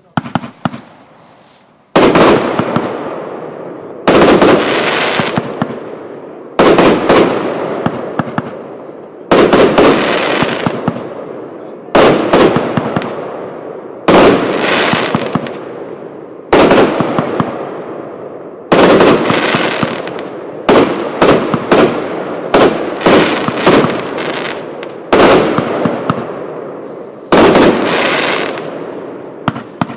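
Lesli "Dark Water" compound firework battery firing: a few small pops, then a sharp loud shot every two seconds or so, each with a tail that slowly dies away. In the last third the shots come in quicker clusters of several at a time.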